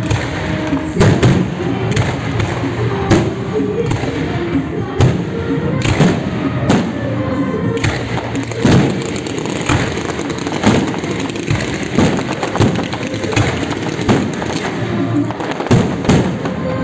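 Fireworks display firing in quick succession: repeated bangs of bursting shells, about one or two a second, over continuous crackling, with music playing underneath.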